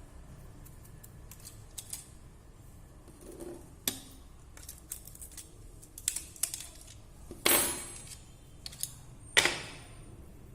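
Hard objects being handled, clicking and clattering: scattered light clicks, then two louder clacks with a short ring in the second half, the second the loudest.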